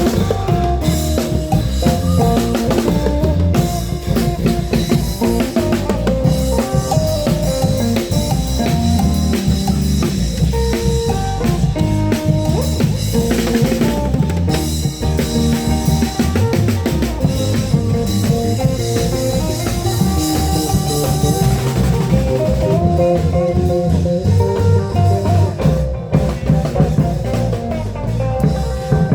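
Isan klong yao long-drum band playing procession music: a driving, even drum rhythm with a strong bass and a plucked, guitar-like melody over it.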